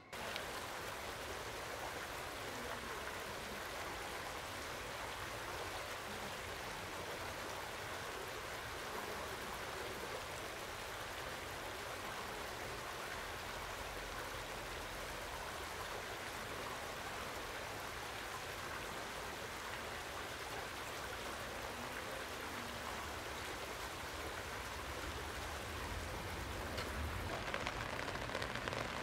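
Steady rain falling on a shallow, rocky stream and its grassy banks, an even hiss of raindrops on water with the stream running over stones. It grows a little louder near the end.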